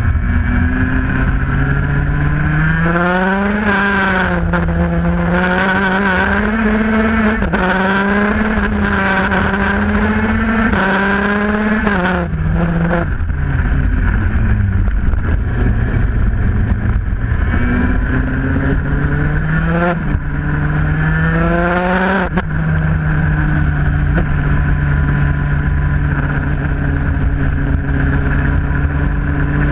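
IAME Parilla 125cc KZ single-cylinder two-stroke shifter kart engine at racing speed. Its pitch climbs again and again and breaks off sharply at the gear changes, then holds steady near the end, over a constant low rumble.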